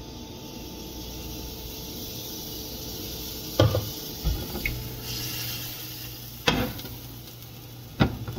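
Chickpea-flour pancake batter sizzling in a hot nonstick frying pan, a steady hiss, with four sharp clacks of the cookware partway through.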